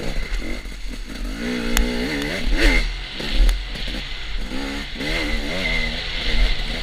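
Dirt bike engine revving up and down as the rider works the throttle, pitch climbing and dropping several times, with a steady low rumble of wind on the on-board camera's microphone and clatter from the bike over rough ground.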